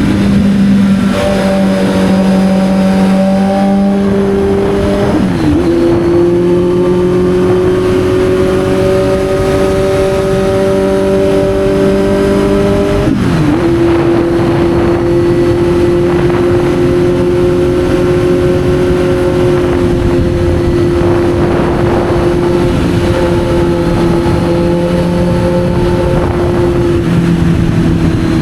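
Kawasaki Z900's inline-four engine pulling steadily while riding. The revs dip briefly about five seconds in and again about thirteen seconds in, as gear changes.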